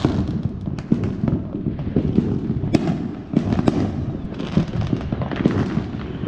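Many fireworks going off across the neighbourhood at once: a continuous background of distant booms and crackling, with a dozen or so sharper, nearer bangs and pops at irregular moments.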